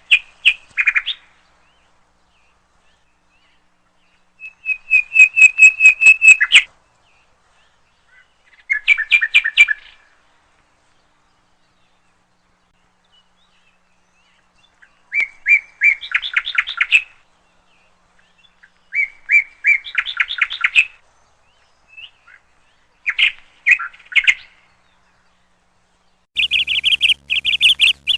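A songbird singing in short phrases of rapid, trilled chirps, about six phrases a few seconds apart. Near the end it breaks into a longer, unbroken run of song.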